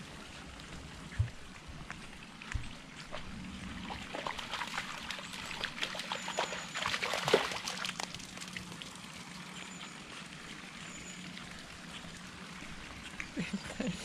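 Shetland sheepdog puppy paddling in a pool, water splashing and trickling around it, loudest about halfway through. Two short low thumps a few seconds in.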